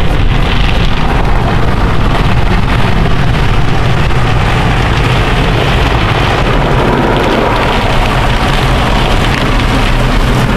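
Automatic car wash spraying water and foam over the car, heard from inside the cabin as a loud, steady rushing and drumming on the windshield and body.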